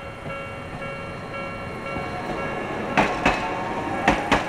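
Tokyo streetcar running on its rails: a steady whine over a low rumble, with two pairs of sharp clacks as the wheels cross rail joints, about three seconds in and again near the end.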